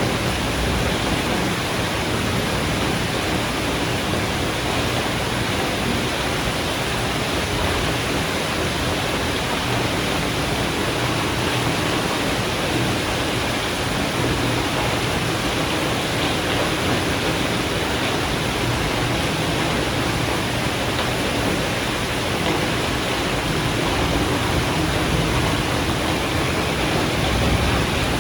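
Heavy rain of a thunderstorm falling steadily, a dense even hiss with no distinct thunderclaps, swelling slightly near the end.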